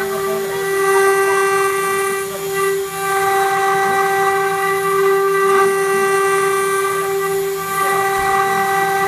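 CNC router spindle running with a steady high whine while its cutter mills a shallow pocket in a metal plate, with the rough hiss of the cut underneath. The sound dips briefly about three seconds in.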